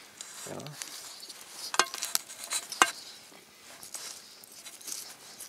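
A few sharp, separate clicks and clinks of cutlery over a soft hiss, with a short low sound about half a second in.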